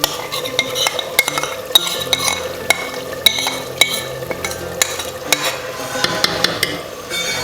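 Mutton frying in a cooking pot with a steady sizzle while it is stirred, with frequent sharp clicks and scrapes of the spoon against the pot.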